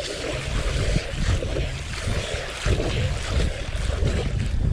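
Wind rumbling on the microphone, with water splashing as a hooked barramundi thrashes at the surface.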